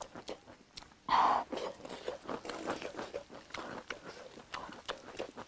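People eating: chewing, with small clicks and scrapes of utensils. A brief louder sound comes about a second in.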